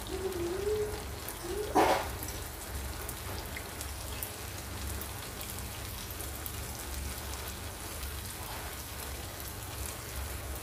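Unniyappam deep-frying in hot oil in an appam pan: a steady sizzle with fine crackling. There is a brief louder sound about two seconds in.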